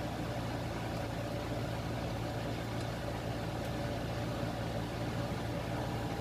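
Steady low hum with a fan-like hiss from a running kitchen appliance, unchanging throughout. The oil pouring into the pan makes no clear sound of its own.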